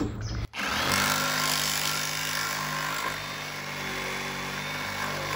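Milwaukee cordless reciprocating saw cutting at the corner of an old truck camper, where the aluminum siding meets the wooden frame. It stops briefly about half a second in, then runs steadily.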